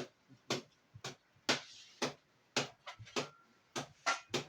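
Hands slapping or patting a person's body during a massage-style back treatment: a run of sharp smacks, about two a second.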